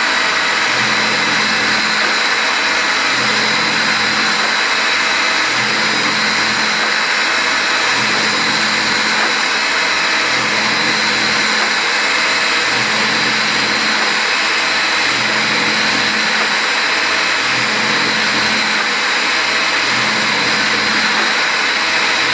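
Electric pipe threader running steadily and turning an air compressor tank, with gravel and water tumbling inside it to scour the tank. A continuous dense rattling rush sits over a low hum that swells and fades about every two seconds, with a faint steady whine.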